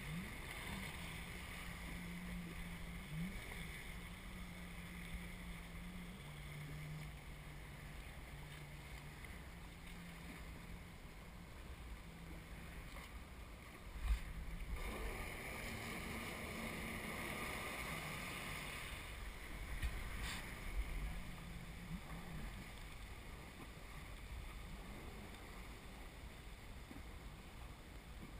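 Jet ski engine running, its pitch shifting up and down in steps, with wind and water rushing past. There is a single sharp knock about 14 seconds in.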